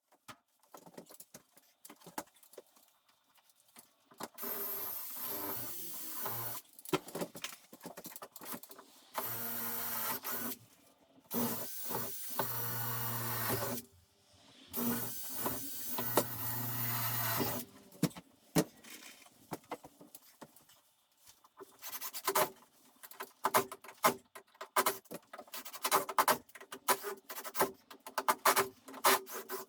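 An electric power tool's motor runs in four bursts of a few seconds each, with a steady hum and a high whine. It is followed by a rapid series of short clicks and knocks.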